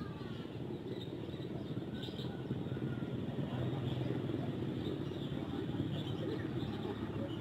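Steady outdoor background rumble, with a few faint bird chirps about two to three seconds in.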